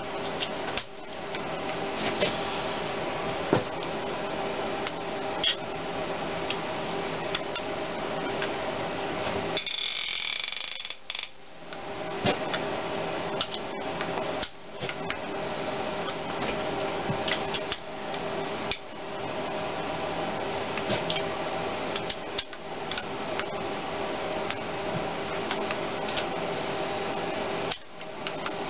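Click-type torque wrench on an extension tightening cylinder head bolts in stages: scattered sharp clicks and metal clinks. A steady hum runs underneath and drops out briefly a few times.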